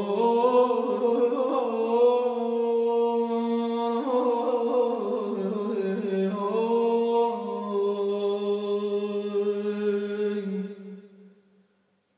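A man singing Persian classical āvāz, one voice holding long, slowly wavering notes in a single phrase that fades out about eleven seconds in.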